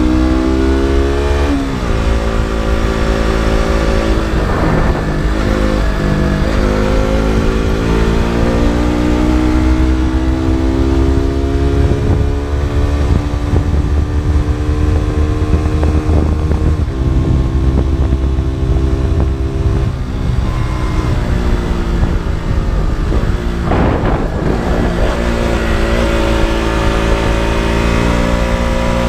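KTM RC 200's single-cylinder four-stroke engine and exhaust under way, its pitch rising and falling as the bike accelerates and slows, with sudden steps in pitch at gear changes about a second in, midway and near the end, over a steady low wind rumble.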